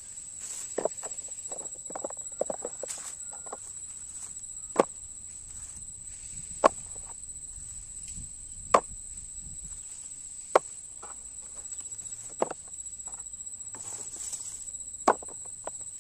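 Cut sugarcane pieces being dropped one at a time into a toy dump truck's plastic bed: six sharp knocks about two seconds apart, with dry cane leaves rustling in the first few seconds.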